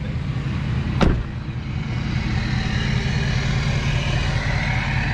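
A pickup truck's engine runs with a steady low rumble, with one sharp thump about a second in.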